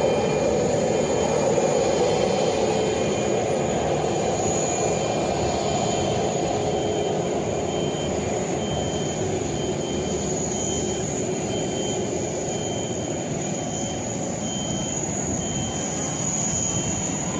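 Boeing 737 MAX's CFM LEAP-1B turbofans running at taxi power: a steady rumble with a thin high whine, slowly getting quieter.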